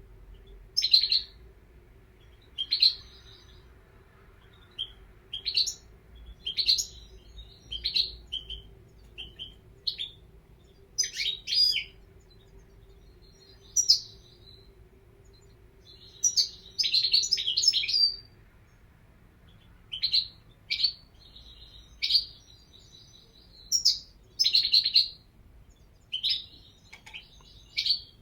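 European goldfinch singing in short bursts of bright, twittering chirps a second or two apart, with one longer run of song about two-thirds of the way through.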